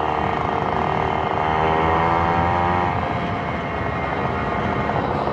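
Hercules Prima 6 moped's small two-stroke engine running while riding, its revs climbing slightly about a second and a half in and settling back by about three seconds.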